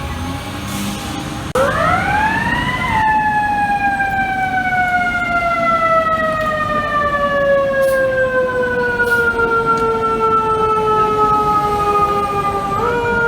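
Fire truck's mechanical siren winding up sharply about a second and a half in, then coasting slowly down in pitch for about ten seconds. Near the end it is given two short boosts that push the pitch back up.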